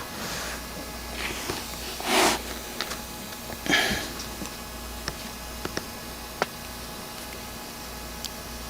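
Small carburetor parts being handled: light clicks and taps, with a few short breathy rustles, the loudest a little over two seconds in.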